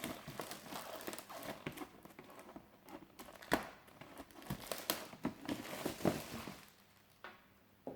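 Packaging of a diecast model car being handled and unwrapped: irregular crinkling and rustling with scattered sharp knocks, the loudest about three and a half seconds in and again around six seconds, dying away near the end.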